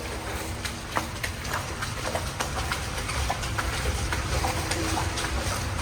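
Footsteps of people walking through a tunnel with shallow water underfoot: irregular steps and small splashes over a steady low rumble.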